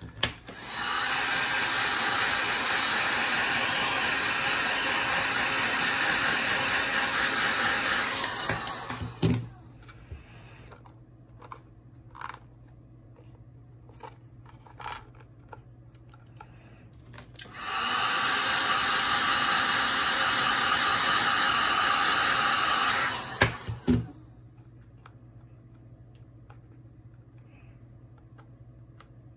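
Genesis GHG1500A heat gun blowing a steady rush of air while heating vinyl magazine wrap. It runs twice, first for about eight seconds and then for about six, and each run ends with sharp clicks as it is switched off. Small handling taps fall in the gap between the two runs.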